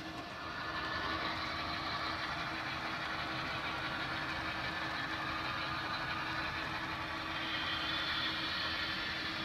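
Battery-powered HO-scale model train running along the layout: a steady mechanical running noise of wheels on track and drive, with a constant hum underneath, a little louder from about half a second in.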